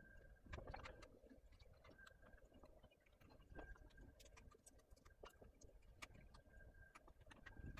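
Near silence, with faint scattered clicks and ticks and a short, faint high tone that comes back every second or two.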